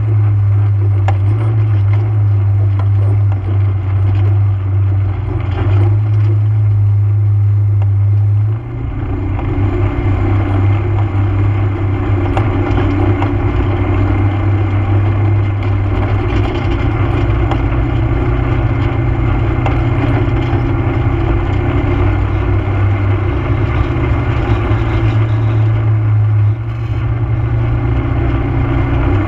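ATV engine running steadily under way, a low drone over the noise of tyres on a dirt and gravel trail. The engine note dips and changes about eight seconds in and again near the end.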